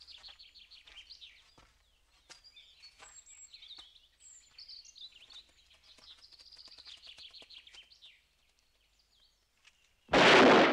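Small birds chirping and twittering for about eight seconds, then one loud shotgun shot about ten seconds in, its report dying away over about a second.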